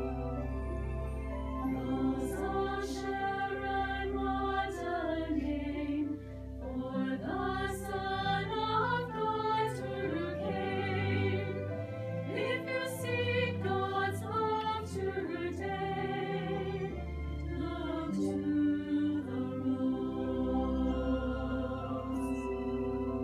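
Choir singing with instrumental accompaniment, voices moving through a melody over steady sustained low notes.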